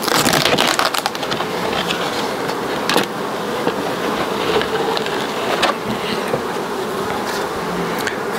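Honeybees buzzing steadily around an opened hive, overlaid by scraping and a few knocks of wood and plastic as the formic acid evaporator is lifted out. The handling noise is heaviest in the first second.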